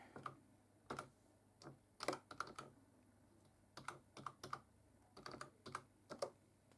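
Faint keystrokes on a computer keyboard, about twenty clicks in short irregular runs as a password is typed in.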